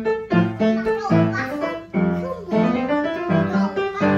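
Background piano music: a light tune of separate notes played one after another.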